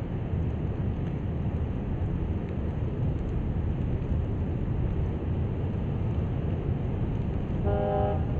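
Steady low rumbling noise of breaking surf and wind. Near the end a vehicle horn sounds once.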